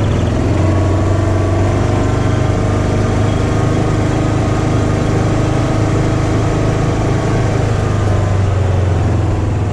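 Case/Davis D100 backhoe's engine running steadily at an even speed.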